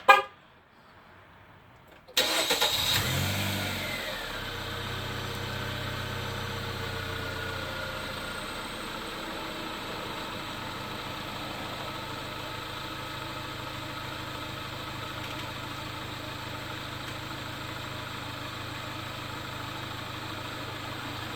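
A 2013 Dodge Dart is remote-started. A short toot sounds right at the start, and about two seconds in the engine cranks and catches. It runs at a raised idle that eases down over the next few seconds into a steady idle and keeps running: the remote start now works, with the check engine light fault cleared.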